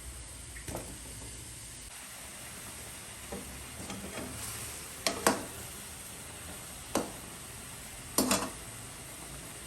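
Chicken frying in hot oil with a steady sizzle. A metal utensil knocks and clinks against the pan several times, loudest about five and eight seconds in.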